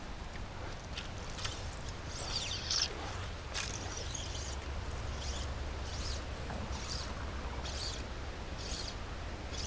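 Fly line being stripped in by hand through the rod guides in short pulls, a quick zipping hiss about once a second, over a steady low rumble.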